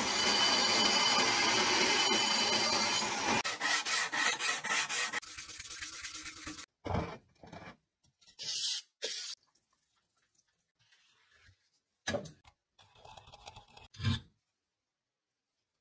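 Steel cleaver blade being sanded: a loud continuous abrasive rasping, then quick back-and-forth rubbing strokes of the blade on sandpaper, then a few short separate scrapes with pauses between them.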